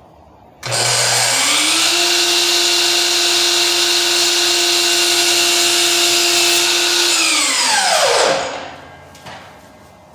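Electric miter saw switched on: the motor spins up suddenly to a steady high whine, runs for about seven seconds while making a 45-degree cut through crown molding, then is released and winds down with a falling pitch.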